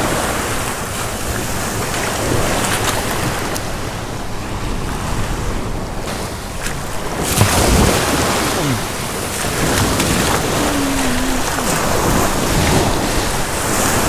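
Water splashing as a hooked snook thrashes in the shallows and is grabbed by hand, over wind rushing on the microphone and small waves lapping at the shore. The splashing is loudest about seven or eight seconds in.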